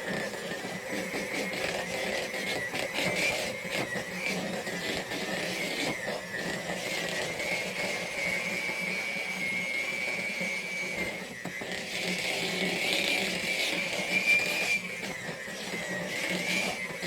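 Electric mixer running steadily with a slightly wavering whine, its beaters churning thick muffin batter of creamed butter, sugar, eggs, flour and applesauce.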